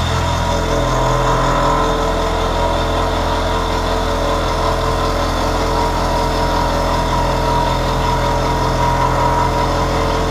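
80 mm eight-insert face mill cutting stainless 304 steel at about 318 rpm: a steady machining hum with several constant tones, slightly louder from about a second in.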